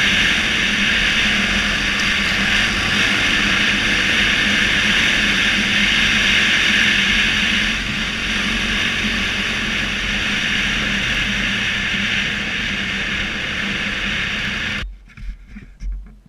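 Trail motorbike riding along a dirt track: its engine running steadily at speed under heavy wind rush on the bike-mounted microphone. The sound cuts off suddenly near the end, leaving something much quieter.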